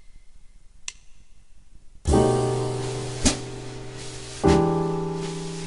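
Metronome clicks about 1.2 s apart, then jazz piano chords played slowly one at a time over the clicks, each held for two clicks. These are the first two chords of the reharmonized bar, B♭7♭13 and then E7♯9.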